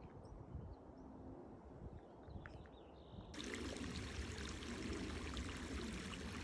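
A few faint bird chirps over quiet outdoor ambience, then about three seconds in a steady hiss of running water cuts in abruptly, like a small mountain stream.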